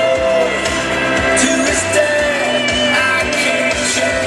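Pop-rock song with a singer and a steady drum beat, played over an outdoor public address system.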